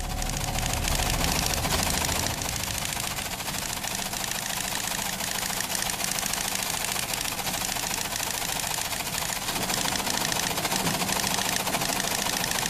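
Teleprinter clattering steadily as it prints out an incoming telegram: a rapid, unbroken mechanical chatter of keys striking the paper.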